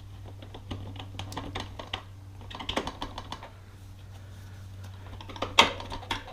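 Irregular light metal clicks and clinks from tools and wheel parts being handled while a motorcycle rear wheel is fitted, with one louder knock about five and a half seconds in.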